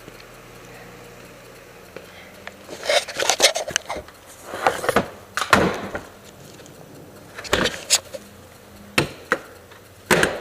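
Irregular knocks and clatters of hard objects being handled and set down, in several separate bursts after a quiet start.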